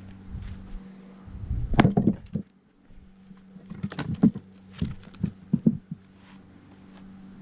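Axe splitting oak firewood: one heavy chop about two seconds in, then a cluster of sharp knocks around four seconds in and several lighter wooden knocks after.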